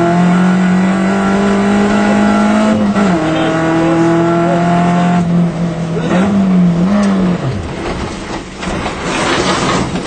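Rally car engine heard from inside the cockpit, held at steady revs, its pitch dropping about three seconds in, rising and wavering briefly, then falling away. Near the end the engine note gives way to rough rushing and knocking as the car goes off the road.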